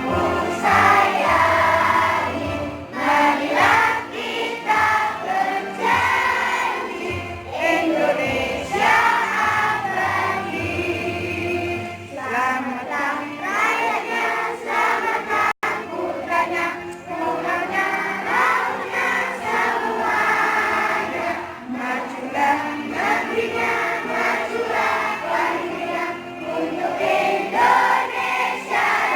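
Music with a group of voices singing, children's voices among them; the sound cuts out for an instant about halfway through.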